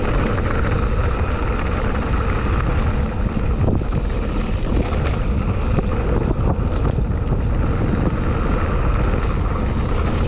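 Wind buffeting the microphone and mountain bike tyres rumbling over a dirt road, then rough cobblestones, on a fast downhill ride, with small knocks and rattles from the bike.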